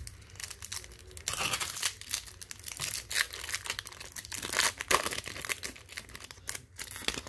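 A foil baseball card pack being torn open and its wrapper crinkled, in a run of irregular crackling tears.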